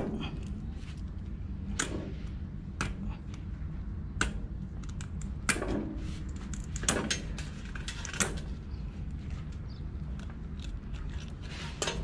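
Barnacles being pried and snapped off a small sea turtle's shell by fingers and fingernails: irregular sharp cracks and clicks every second or so, with fainter scratching between them, over a steady low rumble.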